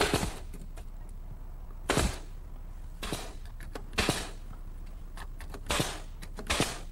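Pneumatic brad nailer driving 1½-inch brads into a wooden frame: six sharp shots, about one every second.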